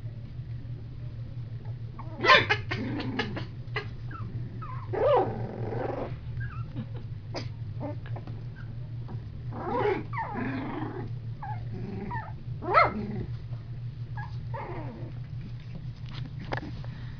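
Litter of young blue heeler × terrier/poodle cross puppies play-fighting, with short growls and yips every few seconds over a steady low hum.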